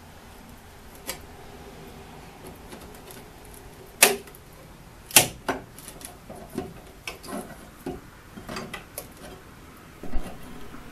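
Steel pry bar working against painted wooden window trim, making scattered sharp knocks and clicks. The loudest knock comes about four seconds in and another follows about a second later.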